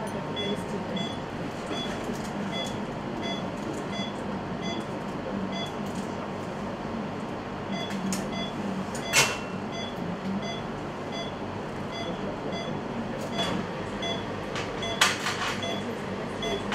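Implant surgical motor running a contra-angle handpiece that threads a tapered dental implant into the bone. The motor unit beeps in a steady run of short tones, about two a second, and a few sharp instrument clicks sound in the second half.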